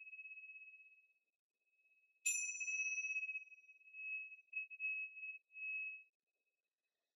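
Tingsha cymbals ringing: a tone from an earlier strike fades out within the first second, then the pair is struck together once about two seconds in. That strike gives a single bright ringing tone that wavers and pulses as it dies away over about four seconds.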